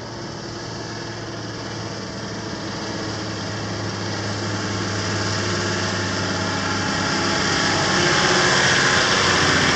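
Toyota LandCruiser 80 series four-wheel drive driving toward the listener, its engine running steadily and growing louder as it approaches.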